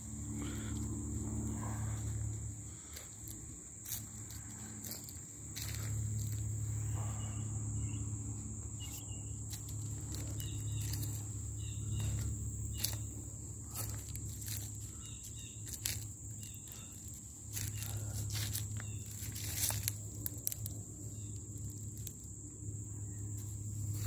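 Steady high-pitched insect drone with a low rumble underneath, and scattered crunching footsteps on dry leaves.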